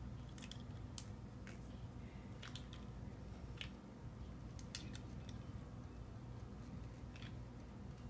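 Faint, scattered small clicks of pliers on a metal eye screw as it is twisted by hand into a solid wooden ball, over a low steady hum.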